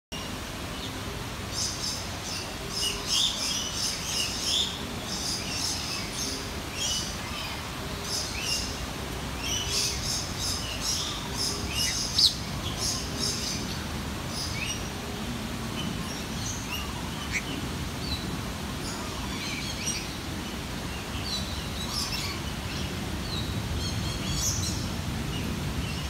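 Birds chirping and calling, in quick bursts of high, sharp notes that are busiest in the first half, with one especially loud note about twelve seconds in, over a steady low background rumble.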